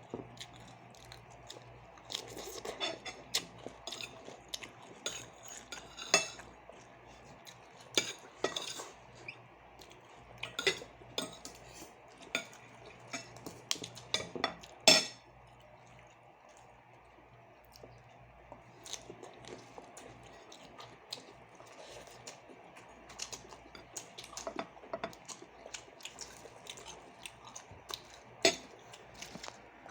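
Eating at a plate: utensils clinking and scraping on a dish in scattered short clicks, with some chewing, the loudest clink about fifteen seconds in.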